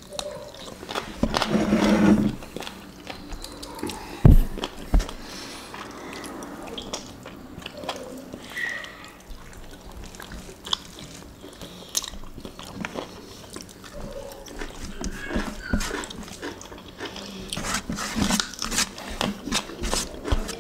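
Close-miked chewing and wet mouth clicks and smacks of two people eating curry fried chicken and rice by hand, with fingers working rice on a metal tray. Two dull thumps come about four and five seconds in.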